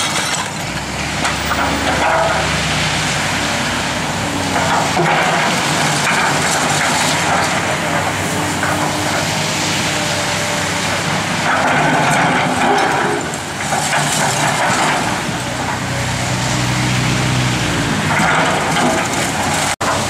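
Link-Belt excavator's diesel engine running under load as its grapple bucket crushes and pulls down concrete-block walls, with recurring bursts of crunching and clattering rubble every few seconds.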